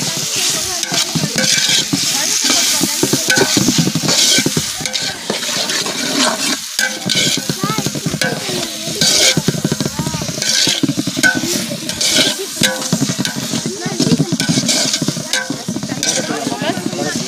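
A metal ladle stirs and scrapes chopped onions and tomatoes frying in oil in an aluminium pot, in repeated irregular strokes over a steady sizzle. This is the onion-and-tomato masala base of a chicken biryani being cooked down.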